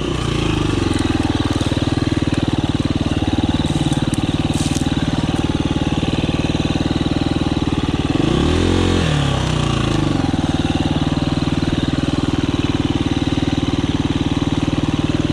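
2019 KTM 350 EXC-F's single-cylinder four-stroke engine running at low revs while the bike crawls over rocks. About eight seconds in the revs rise briefly and drop back.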